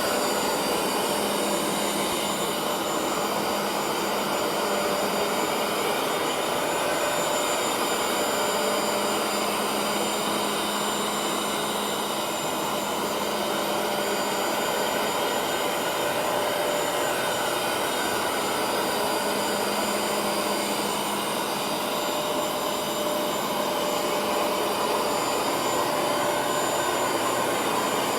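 Vacuum cleaner motor running steadily: a constant rushing hiss with a thin high-pitched whine over it.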